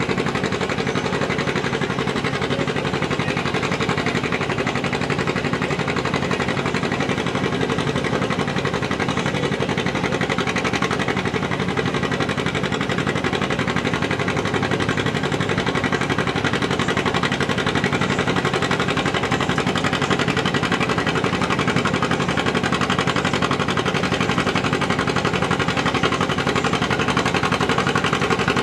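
John Deere two-cylinder tractor engine running under steady load as it pulls a weight-transfer sled, an even, continuous engine note that grows slightly louder in the second half.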